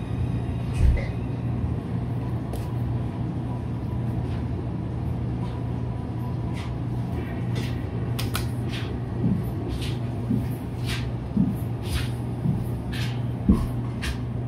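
Small restaurant dining room ambience: a steady low hum with scattered light clicks and knocks, including a dull thump about a second in.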